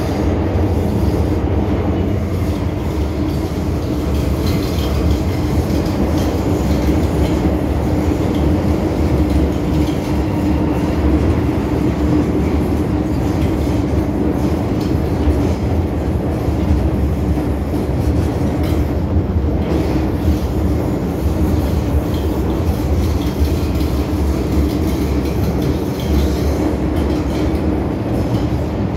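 MTR M-Train electric metro car running at a steady speed through a tunnel, heard from inside the car: a continuous rumble of wheels on rail with a steady low hum.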